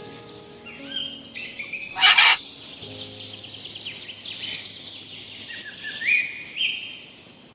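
Birds chirping and calling in quick, varied phrases, with one loud, harsh burst about two seconds in.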